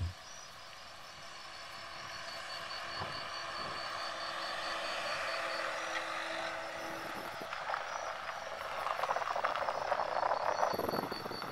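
A Citroën C4 Picasso approaching slowly and pulling onto a gravel lay-by, getting louder as it comes, with its tyres crunching over the gravel near the end. Insects chirp in a steady pulse throughout.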